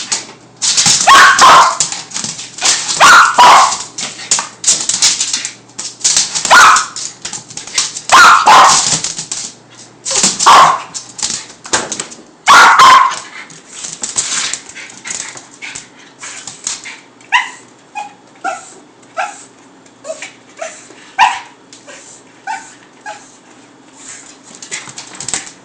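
A dog barking loudly, a bark every second or two, then settling into short, softer high whines for the second half. The dog is excited by light reflections off the refrigerator.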